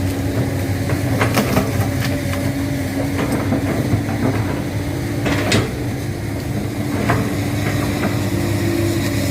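Komatsu PC200-8 excavator's diesel engine running steadily under work, with several sharp knocks or cracks, the loudest about five and a half seconds in.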